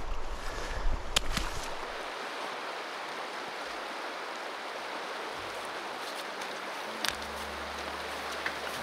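River water flowing steadily, with a low rumble and a few sharp clicks in the first two seconds. Low steady music notes come in about seven seconds in.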